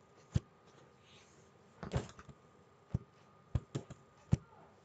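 About six sharp taps and knocks at irregular intervals over faint room hiss. The loudest come about a third of a second in and near the end.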